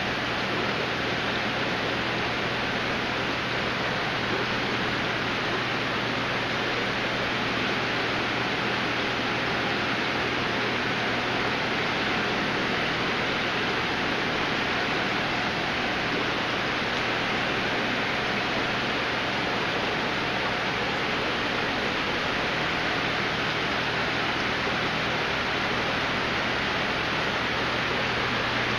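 Steady rushing of aquarium water and air equipment in a fish room, with a low electrical hum underneath; it holds constant, with no changes or separate events.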